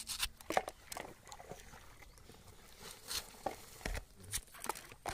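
Soft, scattered taps and rustles of hands picking up and setting down green chillies on a steel plate.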